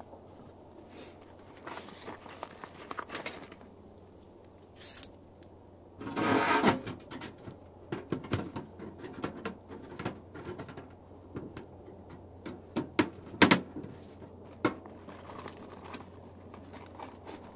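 Sheet-metal wood stove box being handled and fitted together: scattered metal clinks, knocks and scrapes, with a longer scraping stretch about six seconds in and a sharp knock around thirteen seconds in.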